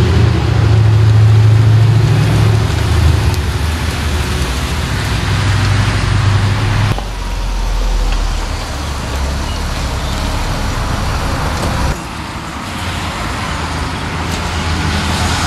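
The Mitsubishi Lancer Evolution X MR's turbocharged 2.0-litre four-cylinder engine running as the car moves, a steady low drone that changes abruptly about seven and twelve seconds in.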